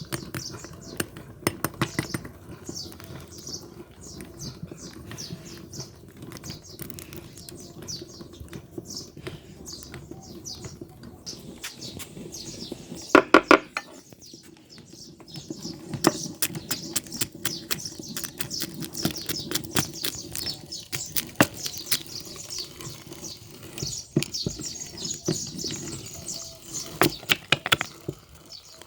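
Electric meat grinder running, with dense irregular crackling and crunching as food is forced through it, and one louder burst about 13 seconds in.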